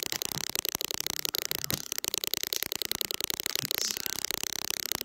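Harsh electronic crackling buzz, a rapid stream of clicks many times a second, which the owner puts down to the recording phone making a weird noise.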